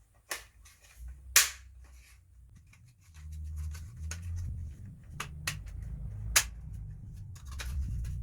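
Hard plastic clicks and knocks as headlight unit parts are handled and pressed into place: a handful of sharp clicks, the loudest about a second and a half in, with low rumbling handling noise from about three seconds in.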